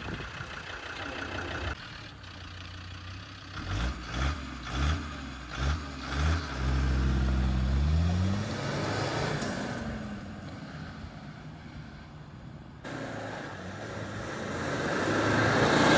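Land Rover Defender 90's TD5 five-cylinder turbodiesel engine revving in several short rising pulls, then one longer pull as the vehicle drives off, fading into the distance. Near the end the engine and tyre noise grow louder again as it comes back.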